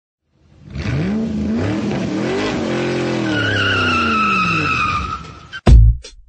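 Car sound effect: an engine revving, its pitch rising and then falling away, with a tyre squeal through the second half. Near the end, loud sharp hits as music begins.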